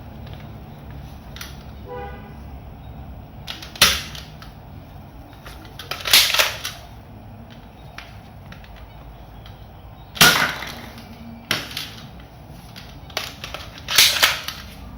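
Toy pistol being fired, about six sharp shot sounds at uneven intervals, some with a short fading tail.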